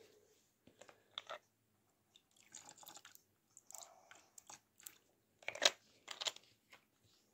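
Faint clicks and rustles of a plastic bottle being handled as a thin stream of Betadine (povidone-iodine) is poured into a plastic basin of water. The sharpest clicks come about five and a half and six seconds in.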